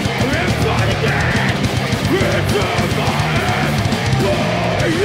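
Heavy metal band playing live: distorted electric guitars and a drum kit, with the vocalist singing into the microphone.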